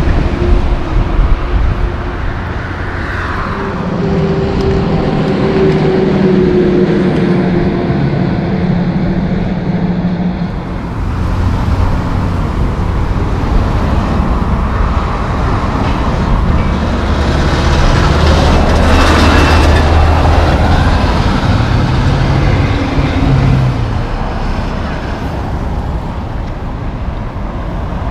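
Diesel engines of loaded logging trucks driving past one after another among other road traffic. The sound changes suddenly about a third of the way in, and the loudest pass comes about two-thirds through.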